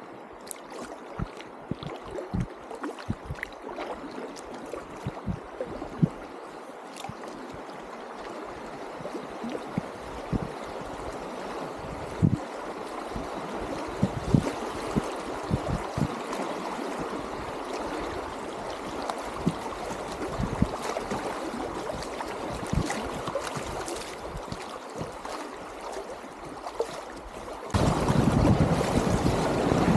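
Shallow river water rushing and gurgling around a packraft, with scattered short low knocks and thumps. Near the end the rushing water jumps abruptly louder.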